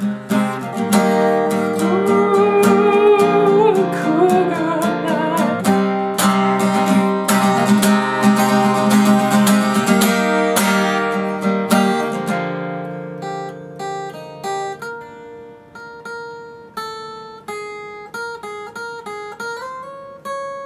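Acoustic guitar strummed in full chords, then, a little past halfway, played more quietly as single picked notes.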